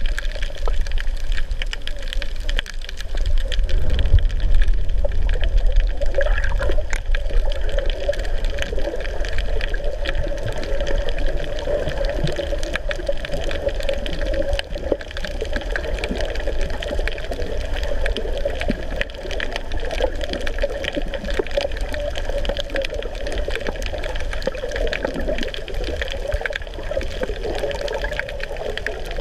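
Underwater ambience recorded by a camera below the surface: a steady, muffled watery rush with a low rumble and many faint scattered clicks.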